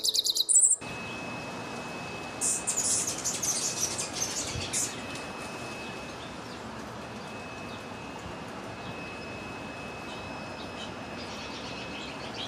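Finches twittering at a feeder: a burst of rapid high chirps a couple of seconds in, then fainter chirps near the end, over a faint steady high tone and outdoor hiss. Guitar music ends within the first second.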